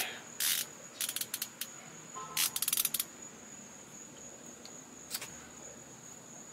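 Metal clicks and clinks from a ratchet and Allen-head socket bit being handled and turned in the hand, with a short run of rapid clicking about two and a half seconds in and a last single click near five seconds.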